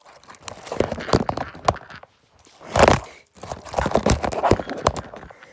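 Rustling and knocking handling noises in two bursts, with a louder thump about three seconds in.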